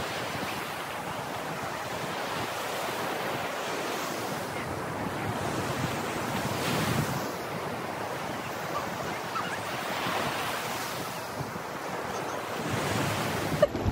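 Ocean surf breaking and washing up the beach in a steady rush that swells and eases as waves come in, with wind buffeting the microphone.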